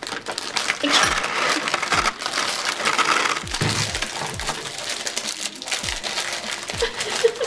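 Plastic wrapping on gingerbread house kits crinkling and crackling as it is torn open by hand, with cardboard packaging rustling, scissors cutting and a few dull knocks on the table.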